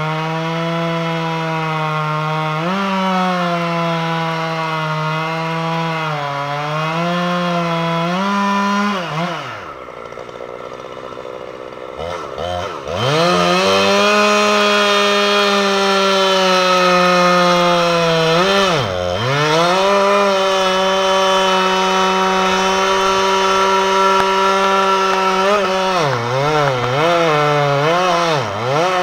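Gas chainsaw cutting into a large tree trunk, running at high revs with the pitch sagging as the chain bites. About nine seconds in it falls back to idle for a few seconds, then revs up again and keeps cutting, with a short dip near the middle and several quick dips near the end.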